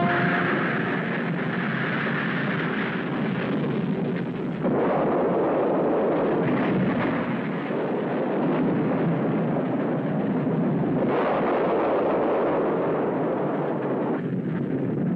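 Vanguard rocket firing and exploding on the launch pad: a loud, continuous rumble that starts suddenly, swells about four and a half seconds in and again around eleven seconds in. It is the sound of a failed launch, the rocket blowing up just after lift-off.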